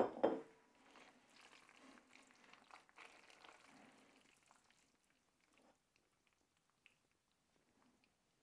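A ceramic pasta plate set down on a wooden counter with a sharp clack and a second knock just after. This is followed by faint, soft, wet sounds of cream-sauced spaghetti being stirred and lifted out of a glass bowl.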